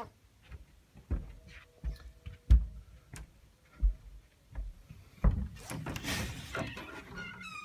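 A series of separate dull thumps and knocks from walking through a doorway on a wooden floor, then a dense rustle of curtain fabric brushing close against the microphone near the end. A falling squeal begins right at the end.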